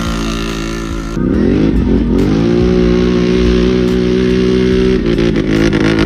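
ATV engine at high revs on a dirt drag run: its note climbs about a second in, then holds steady at high revs for several seconds before shifting near the end.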